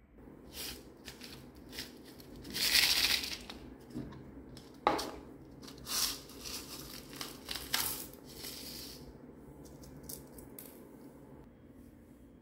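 Small plastic rhinestones and star sequins rattling in a plastic case and pouring out onto an empty glass dish, in several bursts, the loudest a few seconds in, with a single sharp click about five seconds in.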